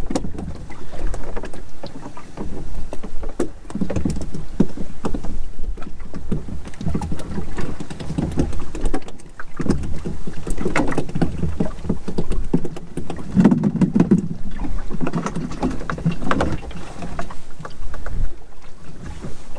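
Water slapping and sloshing against the hull of a small open boat drifting at sea, in irregular swells with scattered knocks and clicks.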